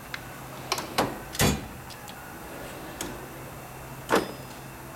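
Metal tool-box drawers being shut and pulled open on their slides: several sharp clicks and knocks, with the loudest thumps about a second and a half in and again near the end.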